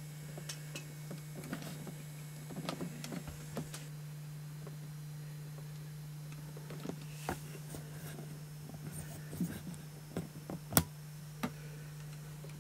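Steady low hum under scattered light clicks and knocks from a handheld camera being carried and handled while walking through a room; the sharpest click comes about three-quarters of the way through.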